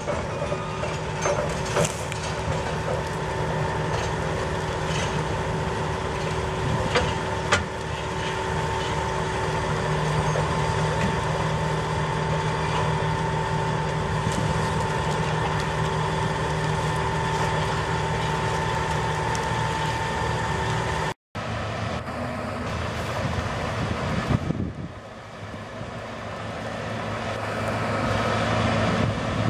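New Holland FR forage harvester running with a steady mechanical whine. After a sudden cut about two-thirds through, the harvester is driving and grows louder near the end.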